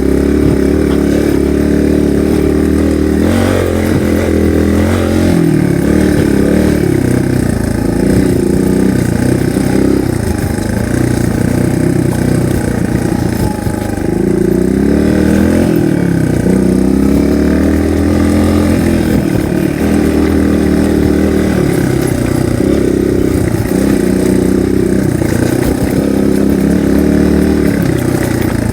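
Single-cylinder dual-sport motorcycle engine running under way, its pitch rising and falling over and over as the throttle is opened and closed on a rough trail.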